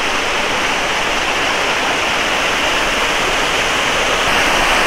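Hill stream water rushing steadily over rocks, a continuous even rush.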